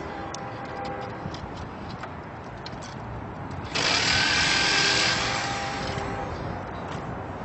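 BNSF freight train's lead diesel locomotives (GE ES44DC, GE C44-9W, EMD SD75M) approaching slowly: a steady low rumble with light scattered clicks. About four seconds in, a loud hiss comes in suddenly and fades over about two seconds.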